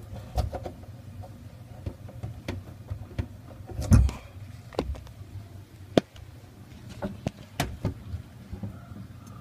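Scattered knocks, clicks and rattles of hands and the camera moving about among the hoses under a kitchen sink, with one louder thump about four seconds in, over a low steady hum.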